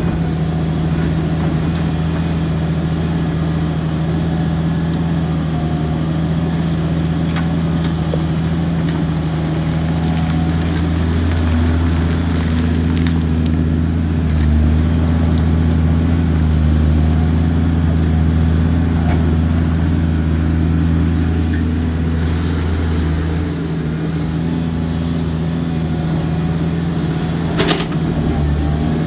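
The diesel engine of a large Caterpillar mining excavator running steadily while digging, pulling harder through the middle stretch, with one sharp knock near the end.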